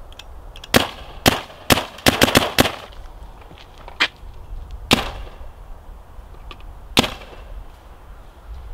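Dye M3+ paintball marker firing about ten shots: a few single shots, a quick string of about five, then three more spaced-out shots, each a sharp short crack.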